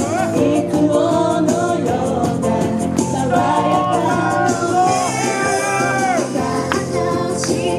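Japanese idol pop song: female group vocals over a backing track with a steady beat.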